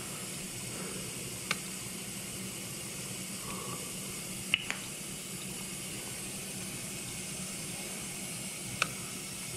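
KitchenAid KDTE104ESS2 dishwasher filling with water in the fill stage of a rinse cycle: a steady hiss of incoming water with a low hum, broken by a few short sharp ticks.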